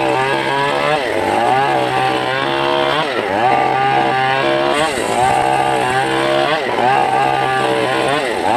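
A homemade circular-saw rig ripping a log lengthwise, its engine and spinning blade running loudly. The pitch dips and recovers every second or two as the blade bites into the wood under load.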